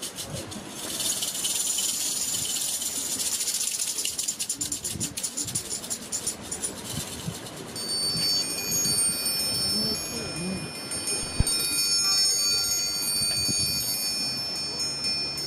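Small bells shaken in a rapid, dense jingle for about the first seven seconds, then several high chime tones ringing on steadily.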